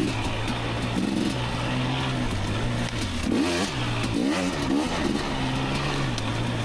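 KTM 250 XC two-stroke dirt bike engine revving up and dropping back several times in short throttle bursts, its snappy power spinning the rear wheel in wet leaves and roots.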